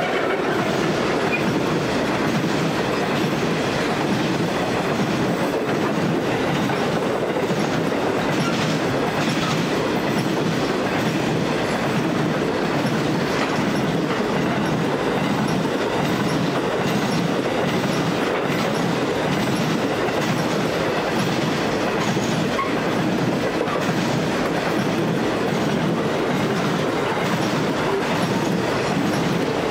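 Loaded grain train of hopper wagons rolling past at steady speed, the wheels clicking over the rail joints in a steady clickety-clack.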